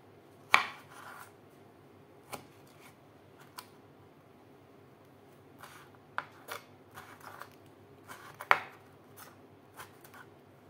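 Knife cutting fruit into slices and small dice on a wooden cutting board: irregular knocks of the blade on the board, the two sharpest about half a second in and about two-thirds of the way through, with lighter taps between.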